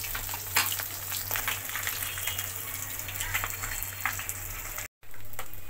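Bata fish deep-frying in hot oil in a metal kadai, a steady sizzle with scattered crackles and pops. The sound cuts out for a moment about five seconds in, then the sizzle resumes.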